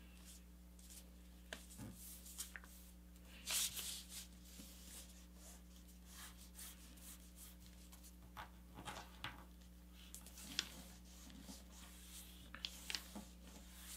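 Sheet of paper being folded and creased by hand: faint rustling and sliding of paper, with a few short crinkles scattered through.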